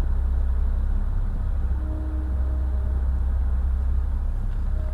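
Steady low background hum, with a faint brief tone about two seconds in.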